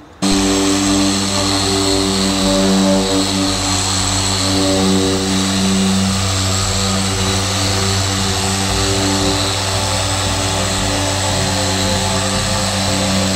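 Electric dual-action car polisher with a foam pad running steadily on the painted bonnet: a constant motor drone with a low hum, starting suddenly just after the opening.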